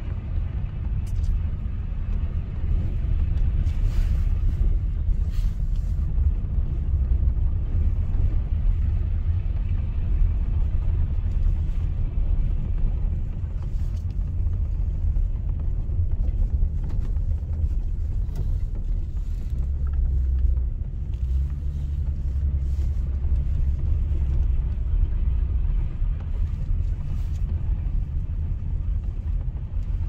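Low, steady rumble of a car driving slowly, heard from inside the cabin.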